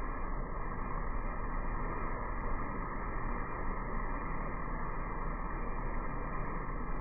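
Steady, muffled background noise with no distinct events, dull and lacking any high end.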